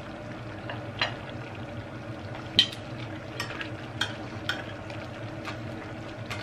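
Metal spoon clinking against a pan and crab shells as seafood in coconut sauce is spooned out onto a plate of rice. About seven sharp clinks, the loudest about two and a half seconds in, over a steady low hum.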